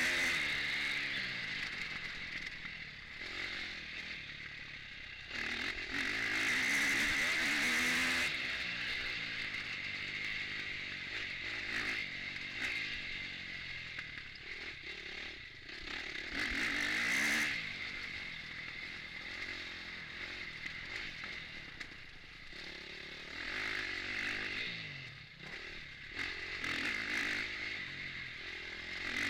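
Motocross bike engine heard from onboard, revving hard and dropping off again and again as the rider works the throttle and gears around a dirt track. The louder surges come about a quarter of the way in and again past the middle.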